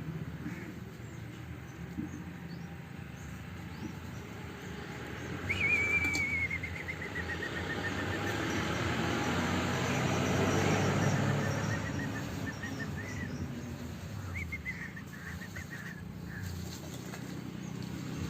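A bird's long, rapidly pulsed trill. It starts about five seconds in, rises briefly, then slowly falls in pitch and fades over several seconds, with a shorter trill a few seconds later. Under it runs a steady low hum, with a broad rushing swell in the middle like something passing.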